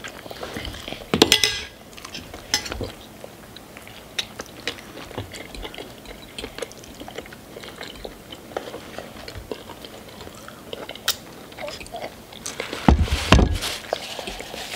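People eating at a table: chewing and biting, with forks and utensils clicking and scraping on plates and noodle cups. Two louder bumps stand out, about a second in and near the end.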